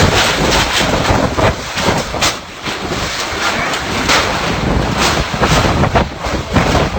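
Strong typhoon wind blowing in gusts and buffeting the microphone, a loud rushing noise that rises and falls from moment to moment.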